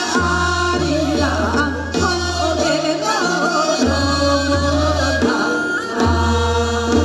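Women singing a Korean folk song (minyo) with a wavering vibrato, over amplified accompaniment with a deep bass line.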